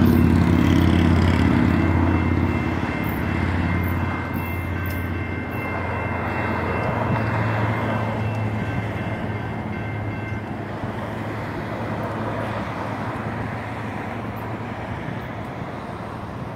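GS Type 2 electronic railroad crossing bells ringing a steady tone, stopping about ten seconds in. Under them is the low rumble of a Sacramento RT light rail train pulling away from the crossing, fading steadily.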